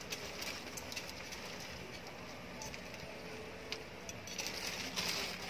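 Metal ladle stirring and lifting pancit canton noodles in an aluminium pot, with a light sizzle from the noodles cooking in very little water and a few sharp clinks of the ladle against the pot.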